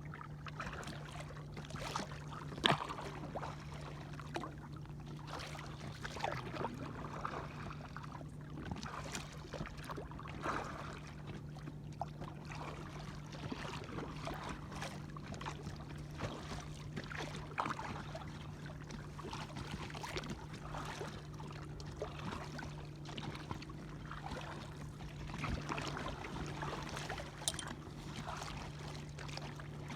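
Small sea waves lapping and splashing irregularly against a kayak's hull, over a steady low hum.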